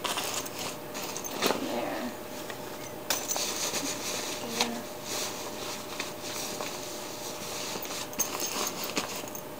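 Hands stuffing clothes and gear into a nylon backpack, with the fabric rustling and scrunching and a few soft knocks as items are pushed into place.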